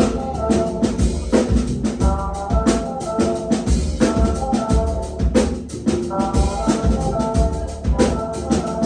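Live rock band playing an instrumental passage with no vocals: a drum kit keeps a steady beat over bass and held, pitched melodic lines.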